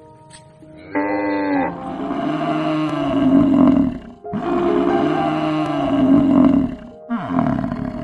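A short moo about a second in, then a domestic yak giving two long, low, rough grunting calls, one after the other with a brief pause between them.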